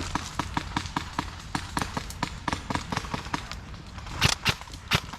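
Airsoft guns firing: a steady string of sharp clicks about five a second, then a few louder, sharper shots from about four seconds in.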